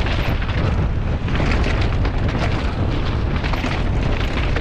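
Wind buffeting a helmet-mounted action camera at speed, with the mountain bike's tyres and frame clattering over a rough, rocky downhill track in a dense run of small knocks.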